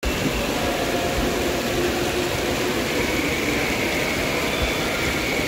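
Indoor waterpark din: a steady rush of spraying and splashing water with a faint, echoing hubbub of voices.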